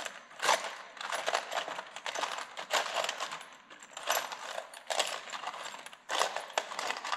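Small metal carburetor parts clinking and rattling against each other and a steel parts box as a hand rummages through them, in repeated short spells.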